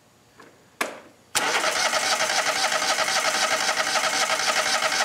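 A lawn tractor's electric starter cranking the engine over with an even, rapid pulse, beginning after a sharp click about a second in. The tractor's starting circuit is cranking with its positive-side connections in good shape, dropping less than 0.1 volt.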